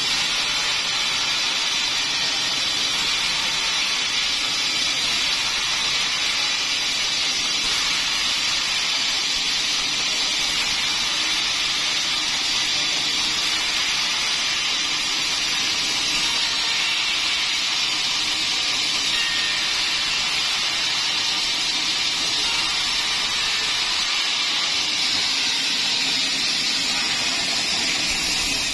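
Large sawmill band saw running steadily as it cuts through a teak log. A continuous, even hiss with no breaks.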